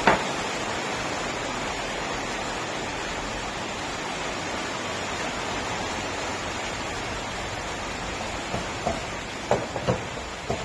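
Steady hissing noise from the diesel injector test setup, with a sharp click right at the start and a few short knocks and clicks near the end.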